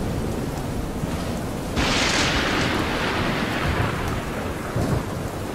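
Thunderstorm sound effect: steady heavy rain with a low rumble, and about two seconds in a sudden loud crash of thunder that fades over a couple of seconds.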